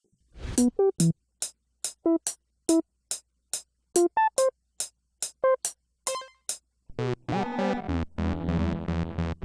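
Synthesizer playing short plucked notes with clicky attacks, about two or three a second, picking out a melody; about seven seconds in, a sustained full synth chord with deep bass comes in.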